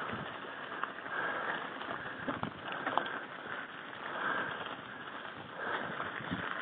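Mountain bike climbing a gravel road: tyres crunching over loose stones, with a few sharp clicks and a rhythmic rasping swell about every second and a half.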